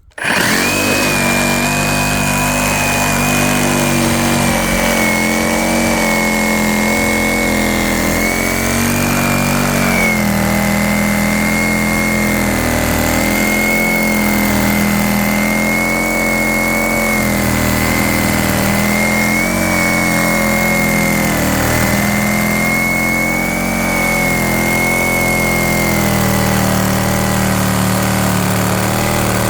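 Metabo 36V cordless reciprocating saw running at full speed with a 12-inch pruning blade, cutting wood: a steady high motor whine over a dense buzzing drone that starts suddenly. Its pitch sags slightly now and then as the blade loads up in the cut.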